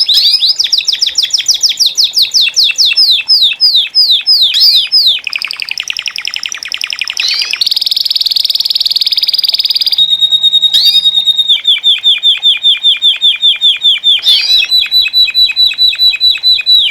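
Several domestic canaries singing at once in campainha and timbrado song styles: fast rolling trills of rapidly repeated sweeping notes that switch to a new pattern every few seconds, with a held steady whistle about ten seconds in.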